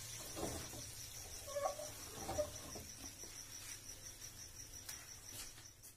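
Quiet kitchen with a faint, steady high-pitched pulsing tone, and a few soft clinks of cookware in the first half.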